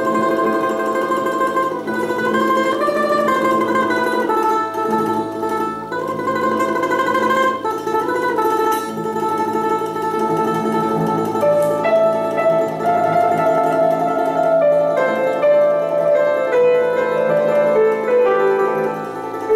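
Domra playing a melody of long held notes, with piano accompaniment underneath.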